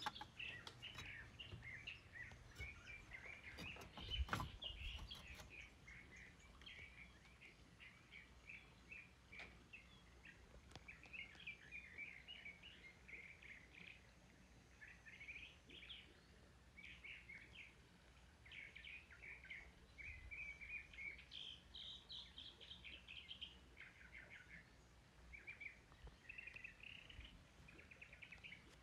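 Faint songbirds chirping and singing in many short, quick phrases throughout, with a single knock about four seconds in.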